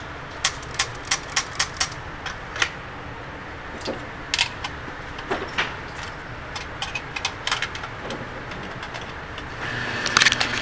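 Sharp cracks and clicks on an indoor shooting range: a quick string of about six, roughly three a second, in the first two seconds, then scattered single clacks and a cluster of lighter clicks in the middle.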